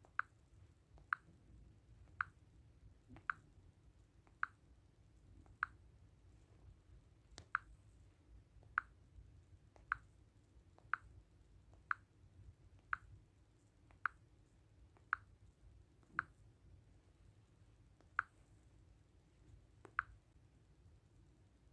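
Short, sharp taps from a smartphone's touch sounds as the swing-analysis app's buttons are pressed, about one a second with a couple of longer pauses.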